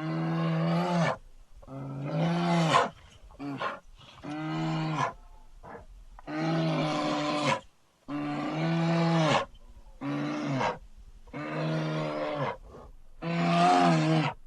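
A string of giant-ape roar sound effects in the style of King Kong: about nine separate roars, each about a second long with a steady low pitch that drops off at the end, with short pauses between them.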